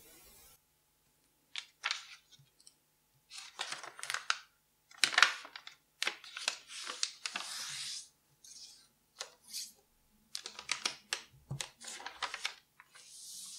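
A square sheet of origami paper being folded along its diagonal: irregular rustling and crackling as it is lifted and laid over, with short sharp swipes as fingers press the crease flat.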